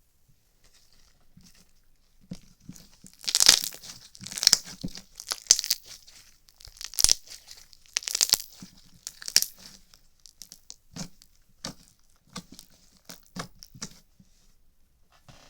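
Irregular crackling pops: loud clusters of bursts through the first half, then sparser single pops.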